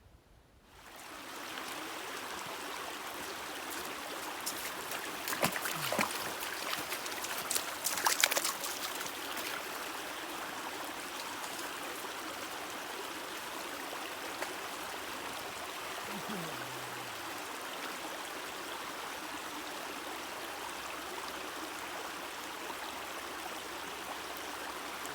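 Running water of a stream, a steady rush that starts about a second in, with a few louder sharp sounds between about five and eight seconds in.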